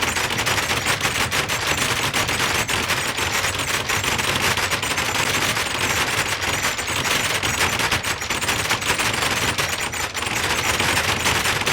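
A fence rattling: a continuous, rapid metallic clatter of many fast ticks, steady and loud without a break.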